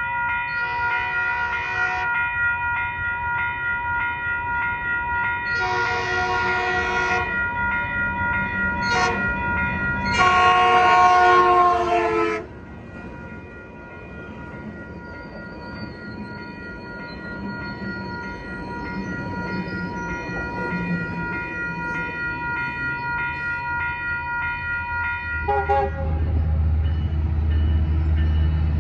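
Metrolink train horn sounding the grade-crossing signal of two long blasts, a short one and a long one, over a steadily ringing crossing bell. Then the bilevel coaches roll past with a rushing rail rumble while the bell keeps ringing. In the last few seconds a locomotive's low engine rumble and brief horn notes are heard as another train approaches.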